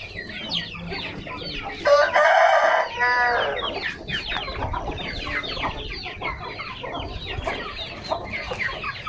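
A flock of Aseel chickens clucking and calling continuously in many short, falling calls. A rooster crows once about two seconds in, the loudest sound, lasting nearly two seconds.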